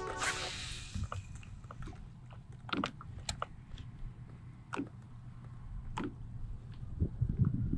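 Low wind rumble on the microphone with scattered light clicks and ticks from a kayak angler handling a baitcasting rod and reel. A short hiss right at the start, and a few heavier low knocks near the end.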